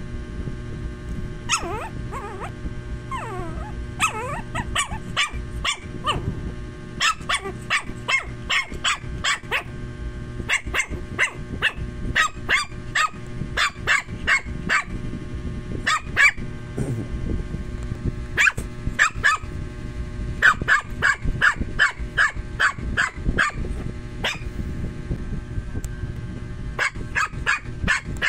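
Small puppy yapping in quick runs of short, high barks, a few a second, with a few whines in the first few seconds. The puppy is hungry and waiting for her food.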